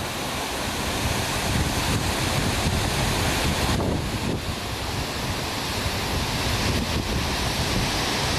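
Waterfall rushing steadily, with wind buffeting the microphone in a low rumble.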